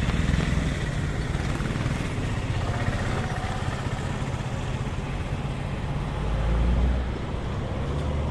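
An engine running steadily at idle, a low even rumble that swells briefly about three-quarters of the way through.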